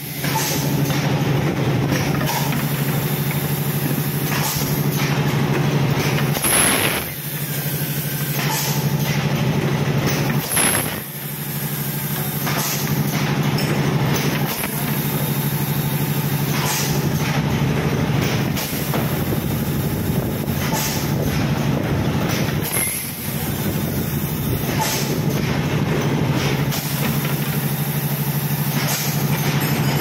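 PET stretch blow moulding machine running: a steady machine hum, with a short sharp blast of compressed air every few seconds as each bottle is blown and its air exhausted.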